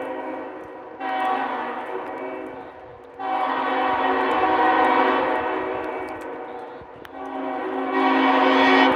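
Locomotive multi-chime air horn sounding a series of long chord blasts. One fades early on, and new blasts start about a second in, about three seconds in and near the end. Each swells and then dies away.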